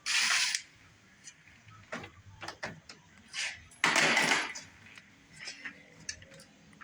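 Short runs of a cordless drill-driver backing out Torx bolts: one at the start and a longer, louder one about four seconds in. Light clicks and taps of small metal parts come between them.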